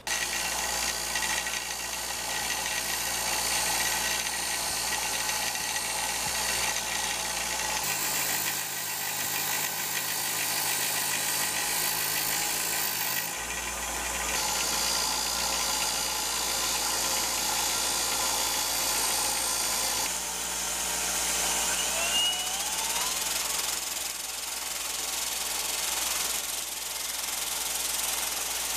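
Shop power tools running: a bench grinder's spinning wheel grinding a steel ferrule, and a belt grinder working a wooden tool handle turned on a drill. The steady motor whir changes abruptly a few times, with a brief rising squeal partway through.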